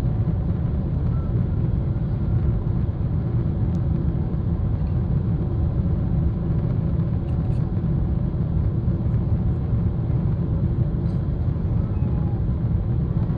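Steady low rumble of a Boeing 777-300ER's passenger cabin: engine and airflow noise heard from a window seat.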